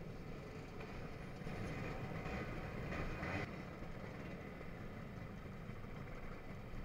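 Several motor scooter engines idling together, a steady low rumble.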